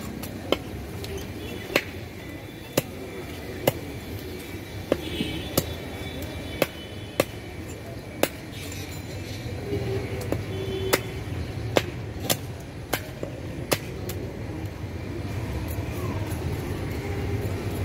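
Sharp knocks, roughly one a second and unevenly spaced, of a large fish-cutting knife striking a fish and the wooden chopping block, over a steady low background noise.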